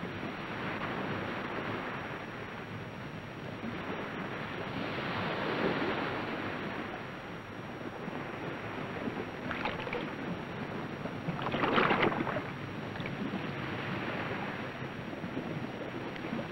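Sea water washing and splashing in slow swells, with two sharper splashes about ten and twelve seconds in, the second the louder.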